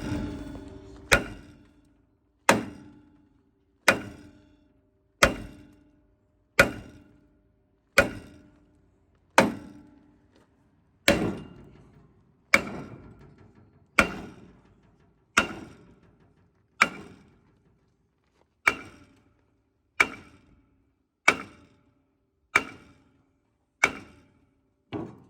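A heavy hammer striking the seized brake drum of a 1979 Ford F350 dually, about eighteen steady blows roughly one every second and a half, each with a short metallic ring. The drum is rusted fast to the hub and does not budge.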